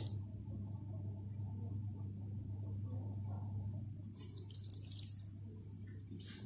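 Water poured from a plastic jug into a glass bowl of glutinous rice flour, in short splashy bursts about four seconds in and again near the end, over a steady low hum and a faint high-pitched whine.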